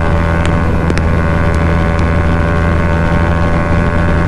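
Bajaj Pulsar NS200 single-cylinder engine through an aftermarket Akrapovic exhaust, running at steady revs while cruising on a highway, with wind noise on the microphone.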